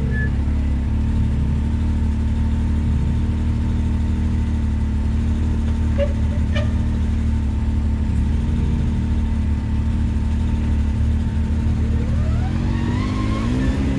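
Side-by-side UTV engine idling steadily, with two light knocks about six seconds in, then revving up with a rising pitch near the end.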